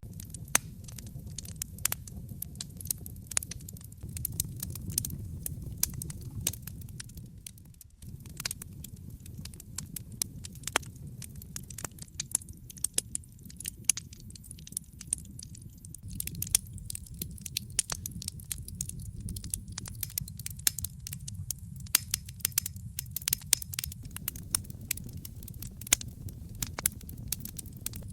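Wood fire crackling in a fireplace: frequent, irregular sharp pops and snaps over a steady low rumble of burning. The rumble drops out for a moment about eight seconds in.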